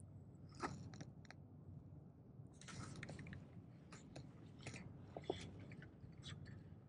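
Faint, irregular clicks and rustles as a spinning reel and rod are handled with gloved hands while the lure is slowly worked.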